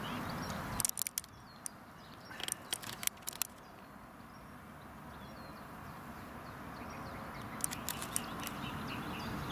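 Faint songbirds chirping over a steady outdoor background hiss, with several sharp clicks in two clusters: about a second in and again about eight seconds in.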